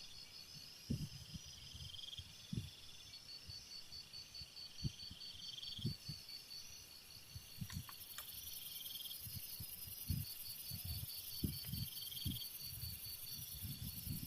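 Forest insects chirring: a steady, rapid high trill, with another insect's short buzzes repeating every couple of seconds and a higher hiss joining about six seconds in. Soft low thumps are scattered throughout.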